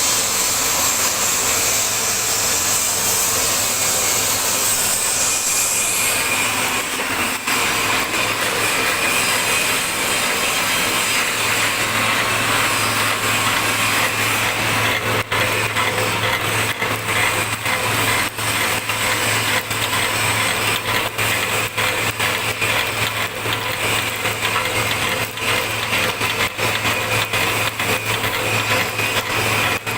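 Wood pellet mill running under load, pressing sawdust into pellets: a loud steady machine noise. A low hum comes in about twelve seconds in, and rapid irregular clicks run through the second half.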